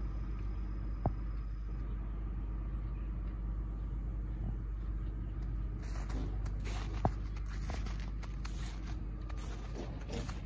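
Zongshen 250cc single-cylinder dirt bike engine idling steadily. There are two sharp clicks, about a second in and about seven seconds in, and scuffing noises from about six seconds in.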